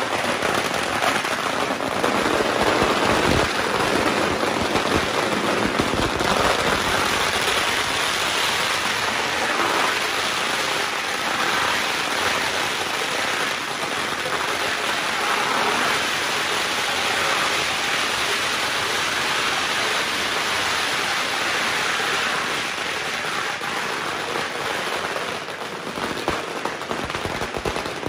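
A long string of firecrackers going off in a continuous, rapid crackle of bangs, easing slightly near the end.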